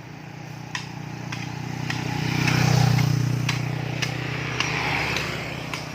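A motor vehicle passing by: its engine hum grows louder to a peak midway, then fades. Sharp knocks, like hand tools striking, sound about every half second throughout.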